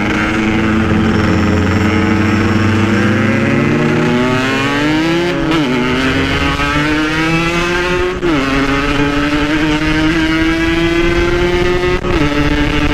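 Yamaha RX-King's two-stroke single pulling under acceleration, its pitch climbing slowly in each gear and dropping suddenly at three upshifts, about five and a half, eight and twelve seconds in.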